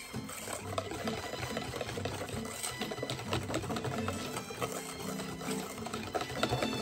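Wire balloon whisk beating a runny egg, sugar and honey filling in a stainless steel bowl: a fast, steady rattle of the wires striking the metal bowl.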